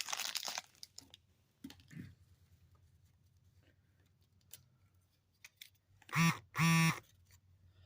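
Foil wrapper of a basketball card pack crinkling briefly as it comes off. Then faint scattered clicks of the cards being handled. About six seconds in come two short buzzy tones, each holding one pitch, about half a second apart; they are the loudest sounds.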